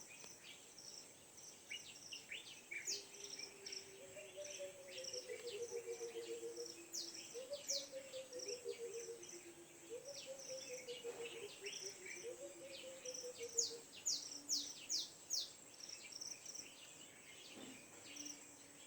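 Early-morning birdsong: many birds giving short, high chirps over a steady high insect trill. From about four seconds in, a lower call of quick notes stepping down in pitch comes four times in about ten seconds.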